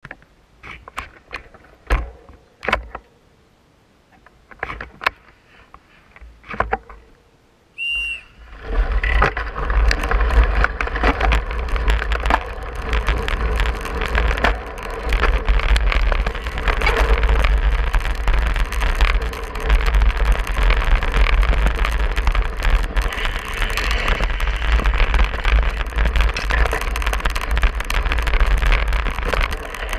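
Scattered clicks while a cyclocross bike waits at the start, then a short whistle about eight seconds in as the starting signal. From then on, wind rushes hard over the camera microphone, mixed with tyre and bike noise as the rider races away over gravel and grass.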